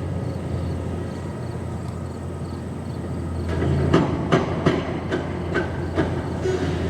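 Heavy demolition machinery running with a steady low hum, and a series of sharp clanks and knocks from about halfway through as it tears into the grain silos.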